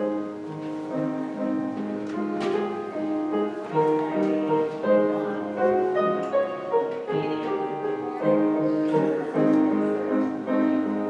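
Piano music, a slow run of sustained chords and melody notes.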